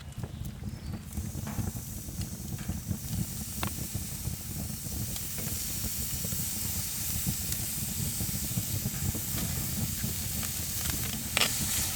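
Bacon sizzling on a fire-heated flat stone: a steady frying hiss that comes in about a second in as the bacon goes onto the stone, and grows fuller, over a low steady rumble.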